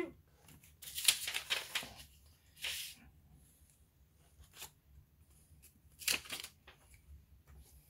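Paper rustling and crinkling as the sheets are lifted and peeled off freshly heat-pressed wooden coasters. It comes in about four bursts: a longer one about a second in, then shorter ones, the last about six seconds in.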